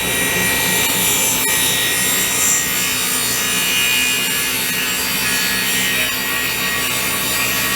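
Table saw running steadily with its blade set about 5/8 inch high, cutting a dado groove along a melamine panel.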